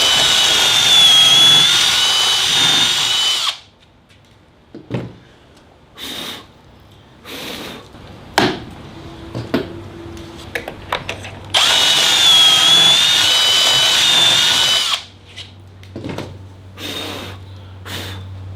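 Drill spinning a stepped pocket-hole bit into timber held in a Kreg 720 Pro jig. It makes two runs of about three and a half seconds each with a high whine, one at the start and one about eleven seconds later, with knocks and clicks of the jig and board between them.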